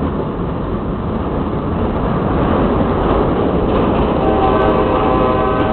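CSX grain train passing close by, its cars rumbling steadily over the rails. About four seconds in, a train horn starts sounding a steady chord over the rumble.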